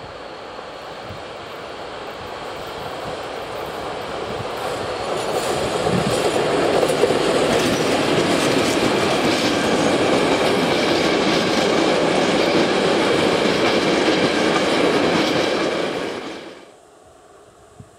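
Freight train passing close by: a Škoda 'laminátka' electric locomotive hauling container flat wagons, its noise growing louder over the first six seconds, then a steady loud rolling noise of the wagons' wheels on the rails. The noise cuts off suddenly about sixteen seconds in.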